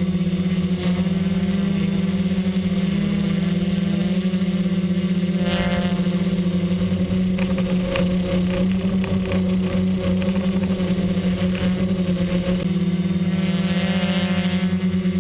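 XAircraft X650 V4 quadcopter's electric motors and propellers humming steadily at a constant pitch, as heard from its onboard camera. The sound turns rougher and noisier from about seven to twelve and a half seconds in.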